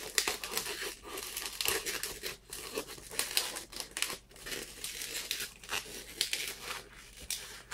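Latex balloons rubbing under the fingers as a green 160 modelling balloon is twisted around a small round balloon: a run of short, irregular rubbing noises.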